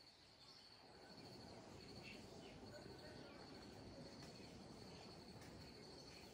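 Near silence, with a faint, steady, high-pitched insect trill over a soft outdoor hiss.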